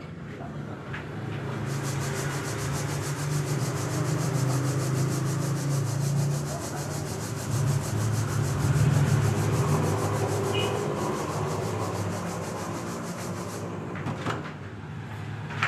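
Rubbing and scraping of dough balls being rolled by hand in sesame seeds in a metal bowl, a continuous sanding-like sound from about two seconds in until near the end, over a steady low hum.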